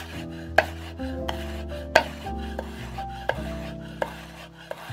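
Chef's knife slicing a red bell pepper on a wooden cutting board: several sharp knocks of the blade striking the board, irregularly spaced, the loudest about two seconds in. Background music with held notes plays underneath.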